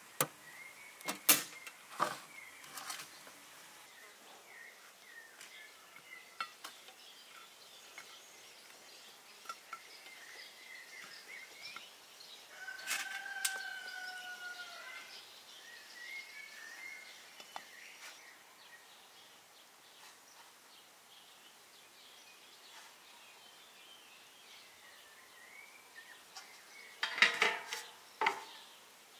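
Metal clanks and clatters from a sheet-metal oven door and black metal baking trays being handled, sharpest just after the start and in a cluster near the end. Small birds chirp throughout, and a rooster crows once around the middle.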